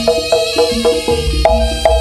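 Jaranan dance music in an instrumental passage with no singing: struck pitched notes in a quick, even pattern of about four a second, joined by deep low beats about halfway through.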